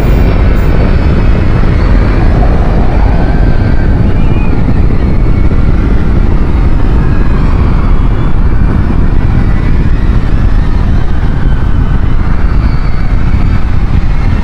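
Loud, steady rumbling noise, strongest in the low end, with faint wavering higher tones running through it.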